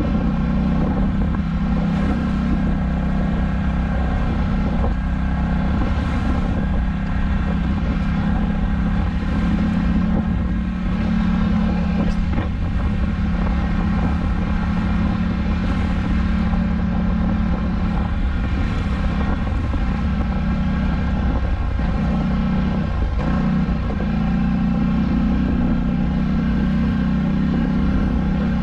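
Polaris Scrambler 1000 ATV's parallel-twin engine running steadily under way as the quad rides through mud and grass, with the throttle eased briefly twice in the last third.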